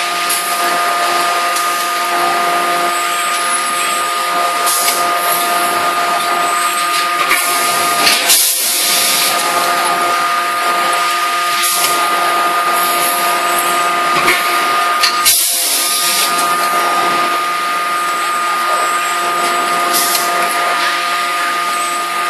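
Steady machinery hum with a constant high whine from a running forging hammer and industrial robot cell, with two short hissing bursts about 8 and 15 seconds in.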